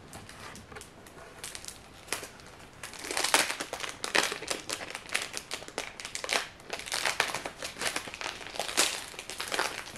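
Plastic packaging crinkling and rustling as it is handled, in irregular crackly bursts starting about three seconds in.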